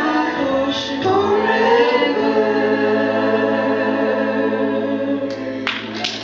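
A small group of singers with sustained organ-like accompaniment closing a hymn, ending on a long held chord. Near the end the music stops and applause breaks out.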